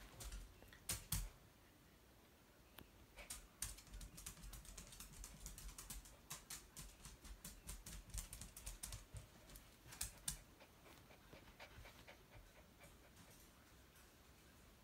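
Near silence broken by faint, irregular clicks and taps, several a second, from about three seconds in until about ten seconds in.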